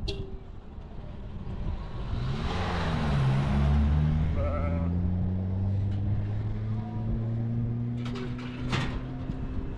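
A motor vehicle's engine running, swelling about three seconds in and then holding a steady low drone, with a few sharp clicks near the end.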